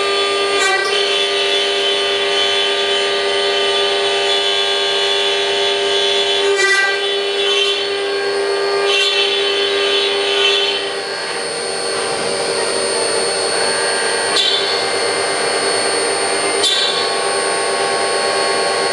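CNC milling machine cutting a prototype bracket: a steady, high machine whine with many overtones, broken by several short bursts of cutting noise. About eleven seconds in the sound eases a little and the whine settles slightly lower.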